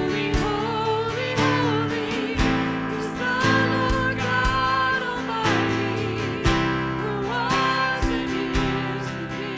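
Worship band music: guitars over held bass notes and a steady drum beat, with a wavering melody line on top.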